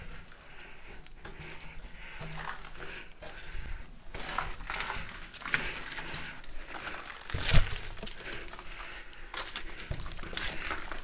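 Footsteps crunching on a gritty, debris-strewn floor and the rustle of clothing and gear as someone moves carefully, with one loud knock a little past the middle.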